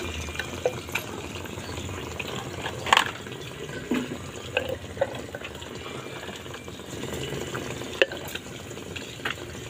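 Ice cubes dropped by hand into a glass jug of pink fizzy drink, knocking against the glass several times; the loudest knock comes about three seconds in. A steady hiss runs underneath.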